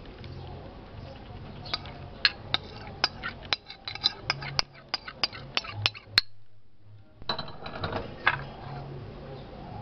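Rapid clinks of a utensil knocking against dishes, a quick run of sharp strikes that breaks off briefly past the middle and then comes back for a few more, over a steady low hum.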